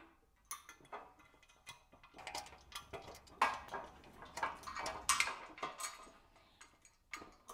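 Irregular metal clicks and knocks: a metal spreader bar being set between the legs of a metal desk frame and its bolts started by hand, with two louder knocks about three and a half and five seconds in.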